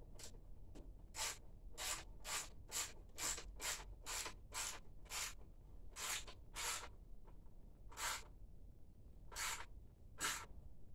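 A socket ratchet being worked on a bolt in an ATV's battery box while the battery is reinstalled: each back-stroke gives a short, scratchy zip of pawl clicks. The strokes come about two a second at first, then slower with longer pauses in the second half.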